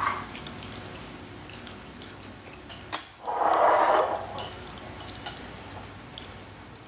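Tableware sounds at a meal: small clinks of chopsticks and bowls, a sharp knock about three seconds in, then about a second of a noisy, watery sound.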